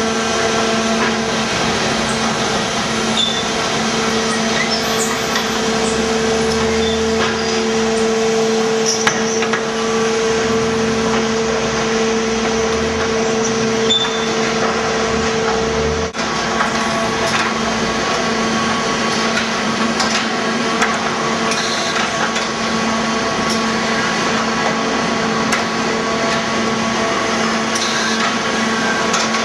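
Wool bale sorting machinery running: a steady hum from the electric motors and powered roller conveyors, with scattered light clanks and knocks as bales move along. The sound changes abruptly about halfway through.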